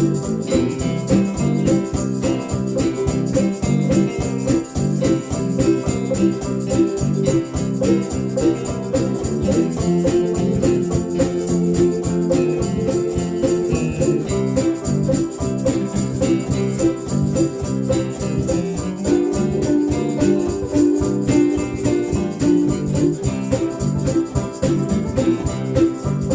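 A country band playing an instrumental break between sung verses, with a steady beat and no singing.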